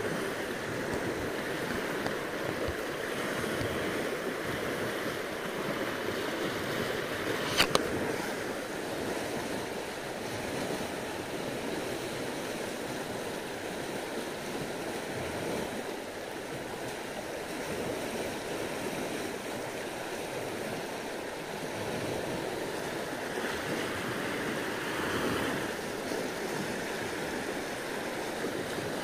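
Steady rushing of a fast, swollen, muddy river running turbulently past the bank. One sharp click about a third of the way through.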